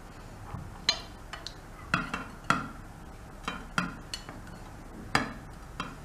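Glass baking bowl and ceramic plate clinking and knocking together as a cake is turned out of the bowl: about ten short, sharp taps at uneven intervals.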